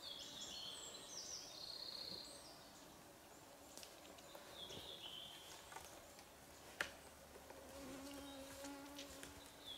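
Quiet forest ambience: a flying insect buzzing with a steady low hum, strongest in the last two seconds, and short phrases of bird song near the start and again around the middle. A single sharp click comes about seven seconds in.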